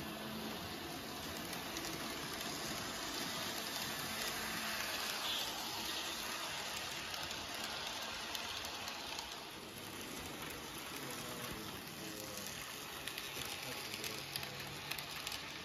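N gauge model freight train running on the layout track: a steady, faint rushing whir of its small motor and wheels on the rails. It swells a few seconds in as the train comes past and eases off later, with light clicking near the end.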